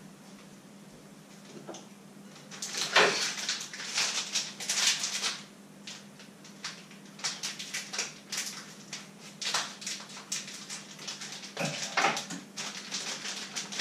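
Irregular rustling, crinkling and clicking of small items being handled at a kitchen worktop, in flurries, over a steady low hum.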